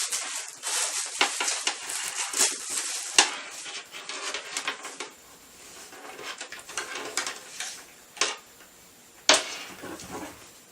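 Handling noise from plastic speakers and their cable: irregular clicking, clattering and rustling, busy at first and thinning out, with two sharp knocks about eight and nine seconds in.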